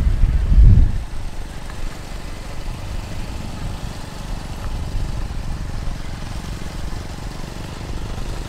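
Low rumble of motorcycle and vehicle engines, loudest in the first second, then steady.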